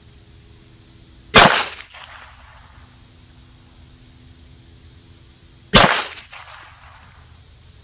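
Two shots from a CZ 83 pistol chambered in .380 ACP, fired slowly about four seconds apart, each followed by a short echo.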